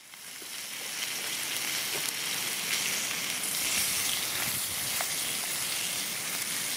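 Bacon and chanterelle mushrooms sizzling in a frying pan on a gas canister camping stove, a steady frying hiss that swells up over the first second.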